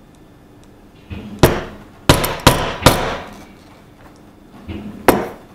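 Mallet striking a leather hole punch through a leather strap onto a stone slab, punching 3 mm rivet holes. A light tap and four sharp blows come in quick succession about a second in, then another tap and a single blow near the end.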